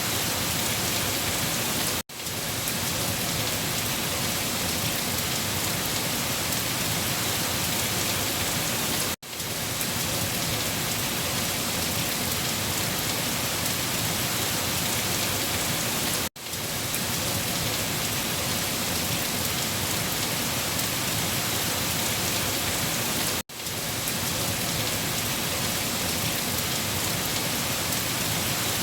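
Heavy rain falling on leaves, a steady dense hiss. About every seven seconds it cuts out for an instant and swells straight back in.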